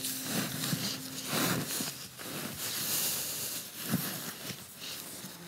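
Bed sheet rustling and swishing as gloved hands smooth and straighten it, with a few louder swipes.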